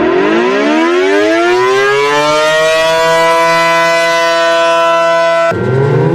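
Civil defense warning siren winding up, its pitch rising from low over about two seconds to a steady high wail that it holds. It cuts off abruptly near the end, and another siren starts winding up from low.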